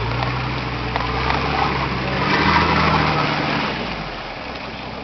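Nissan Patrol GR Y60's 2.8 turbodiesel engine revving under load as the 4x4 pulls through a deep mud rut. The revs climb about two seconds in and drop back near four seconds.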